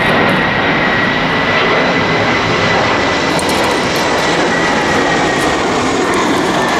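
Jet aircraft passing overhead on the airport's flight path: a loud, steady roar with a thin high whine held throughout.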